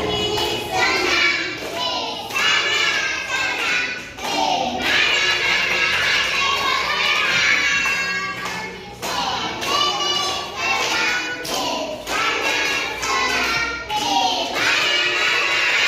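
Children's song: voices singing over music, with continuous melodic phrases.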